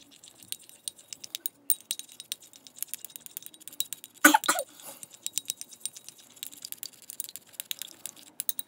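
A black mixing stick stirring thick shampoo and hand sanitizer in a small glass bowl, clicking and tapping against the glass several times a second. One brief, louder noise comes about halfway through.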